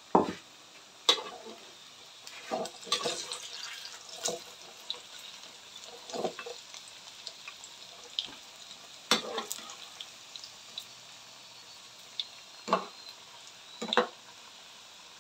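Saba banana slices frying in oil in a pan, with a faint steady sizzle and a metal spatula scraping and knocking against the pan about nine times as the slices are turned. The slices are nearly done and browning.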